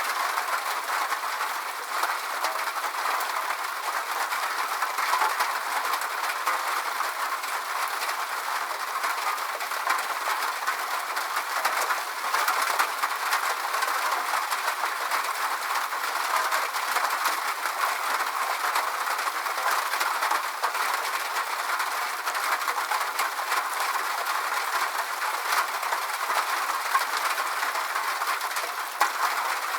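Steady rain: an even hiss with dense fine ticks of drops, and no low rumble.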